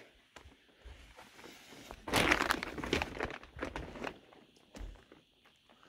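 Plastic sheeting crinkling and rustling for about two seconds as someone pushes through it, among scattered footsteps, with a dull thump near the end.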